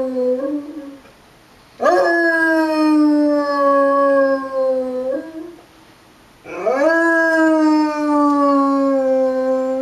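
Basset hound howling: the tail of one howl, then two long howls. Each swoops up sharply at the start and then holds a slowly falling pitch for about three and a half seconds.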